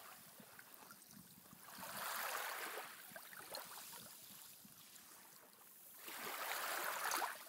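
Moving water washing in two swells about four seconds apart, with a fine crackle through it.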